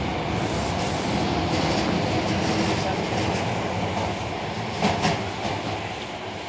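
Osaka subway train running, heard from inside the car: a steady noise of wheels on track, with a couple of sharp clacks about five seconds in, growing a little quieter near the end.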